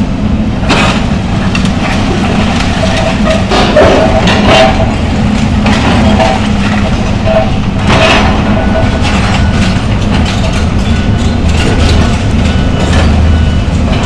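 John Deere excavator's diesel engine running steadily under load, with loud cracks and crunches of building debris being torn down several times, the loudest about eight seconds in.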